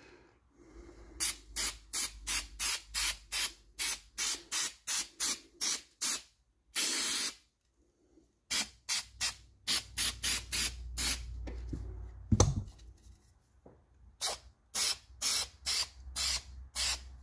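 Aerosol spray-adhesive can spraying in quick short bursts, about three a second, with one longer spray about seven seconds in. A dull knock comes about twelve seconds in, followed by a short pause before the bursts resume.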